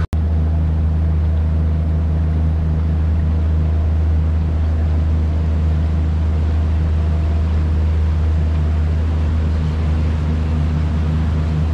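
A tour boat's motor running at a steady cruising speed: a constant low drone with water rushing along the hull. It cuts out for an instant just after the start.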